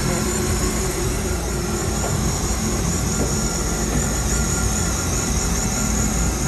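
Supercharged jet-ski engine in a mini jet boat running steadily, heard close up through the open engine hatch.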